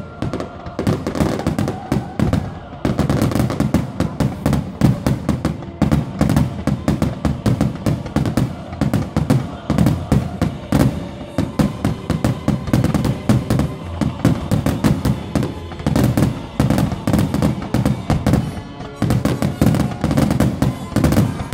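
Fireworks grand finale: a rapid, unbroken barrage of aerial shell bursts and crackling bangs, many overlapping each second.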